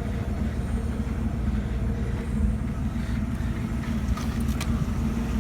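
Vehicle engine running steadily, with a couple of light clicks about four seconds in.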